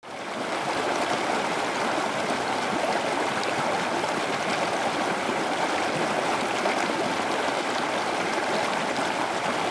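Muddy floodwater rushing along a shallow river channel, a steady, even rush of water.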